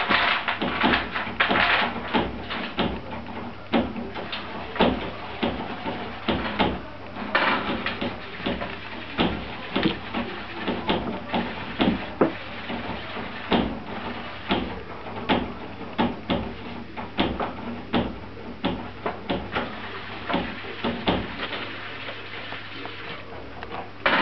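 Squirrel digging and scratching in loose soil-like substrate, making irregular rustling scrapes and small knocks, busiest in the first couple of seconds and again about seven seconds in. It is burying food as winter stores.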